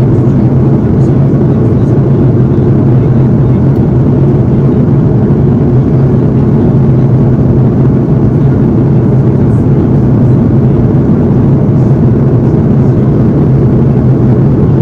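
Steady, loud cabin noise inside an Airbus A330-200 airliner: an even rush of airflow and engine noise with a low, constant hum.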